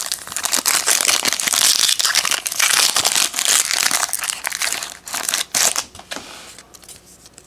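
Foil trading-card pack wrapper crinkling as it is opened by hand, a dense crackling that thins out after about five seconds into a few last crinkles.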